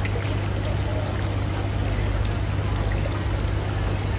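Water splashing and bubbling steadily in aerated live-seafood tanks, over a constant low hum.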